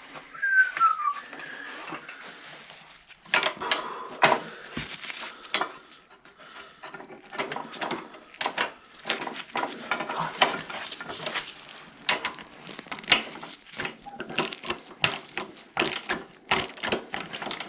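Hand tools clinking on metal, then a ratchet wrench clicking in quick runs of strokes as a 1/2-inch bolt on a snowblower is worked loose.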